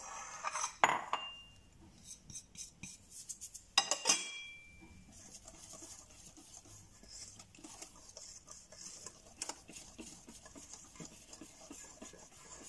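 A wire whisk beating pancake batter in a stainless steel mixing bowl: fast, steady ticking of the wires against the bowl. A few sharp metal clanks with a short ring come near the start and about four seconds in.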